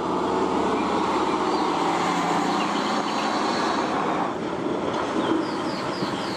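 A MAN dump truck's diesel engine running steadily as the truck drives, a continuous drone.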